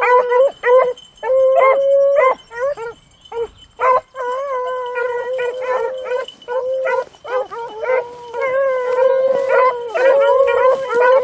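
Pack of beagles baying on a rabbit's scent: quick, short chop barks for the first few seconds, then several hounds' long drawn-out bawls overlapping.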